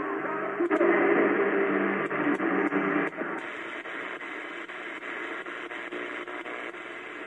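Vintage-style R-045BT portable radio on the AM band playing a broadcast voice, thin and muffled, which about three seconds in gives way to a weaker hiss of static with faint crackles of interference.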